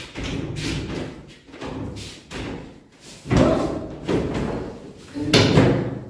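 Thumps and knocks of a person moving about on the wooden boards of a raised bed platform as he gets down and lies on it. The loudest come a little over three seconds in and again around five and a half seconds.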